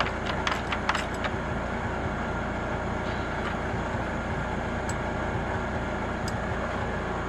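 Steady low mechanical hum, like an engine running, with a few light clicks and taps in the first second or so.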